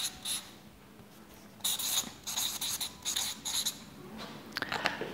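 Felt-tip marker squeaking across flipchart paper as a word is written: a couple of short strokes, a pause of about a second and a half, then a quick run of squeaky strokes.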